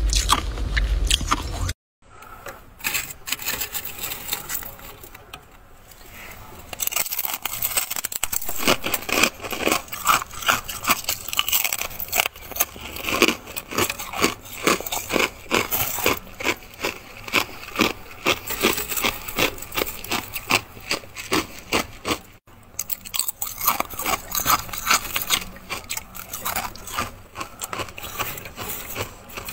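A hand scraping and gathering thick, loose freezer frost, giving a dense, crackling crunch. There is a louder stretch at the start, a short silent gap about two seconds in and another brief break about three-quarters of the way through.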